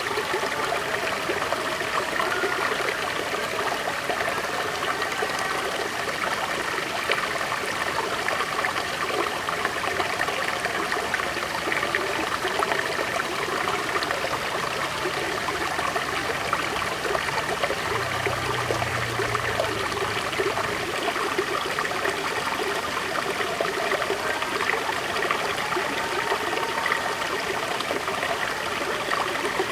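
River water flowing steadily over stones, with a continuous rushing and trickling.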